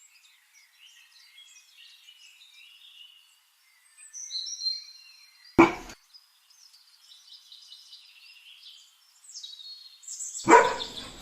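Birds chirping, with a sharp bang about halfway through and another loud bang near the end.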